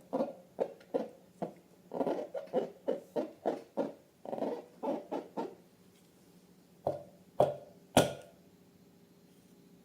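Rubbery squeaks and squelches from slime-filled balloons being squeezed, three to four short ones a second, stopping about halfway. Three sharp snaps follow near the end.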